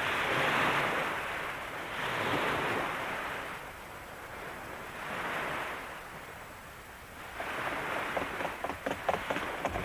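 Surf sound effect: a rushing wash of waves swells and fades about every two to three seconds. A run of crackling clicks comes in near the end.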